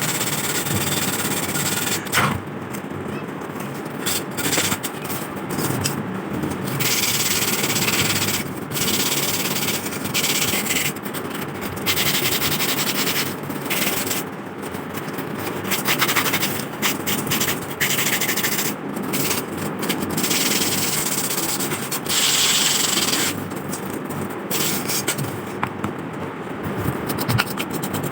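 Sandpaper rubbing on rusty metal lamp parts by hand, a coarse scratchy hiss that stops and starts every second or two.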